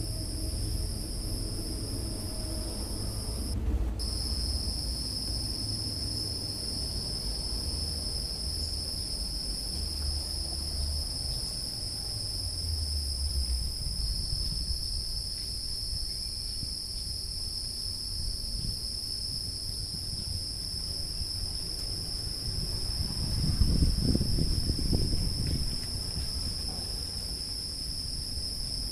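Insects singing in a steady high-pitched drone, which breaks off for a moment about four seconds in, over a low rumble that grows louder between about 23 and 26 seconds.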